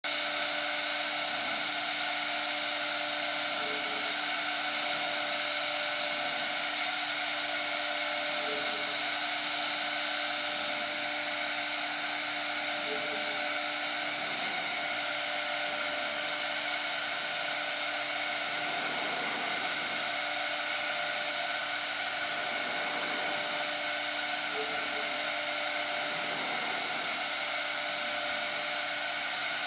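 Steady whir of running machinery: an even rushing noise with a constant hum, and a faint short blip every few seconds.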